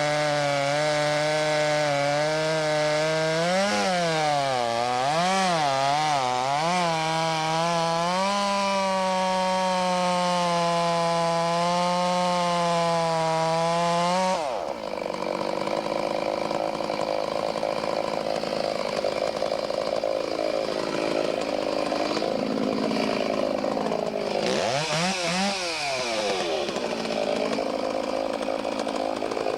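Two-stroke chainsaw running at high revs as it cuts the face notch into a standing tree. Its pitch dips and recovers several times in the first few seconds as the chain loads in the cut, then holds steady. About halfway through the tone drops abruptly and the saw runs lower and rougher, with another dip near the end.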